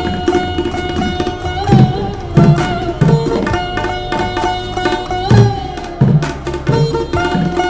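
Semi-tabla style kendang with flat 'petir' tension rings, played in a rhythmic pattern. Its deep bass strokes bend in pitch, against sharper slaps, over a melodic backing with sustained notes.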